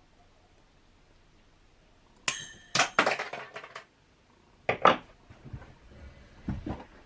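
Metallic clinks and clatter of a steel piston wrist-pin C-clip and needle-nose pliers: a sharp ringing clink about two seconds in followed by a brief rattle, then two louder knocks around five seconds as the pliers are set down on the bench, and a few softer clacks near the end.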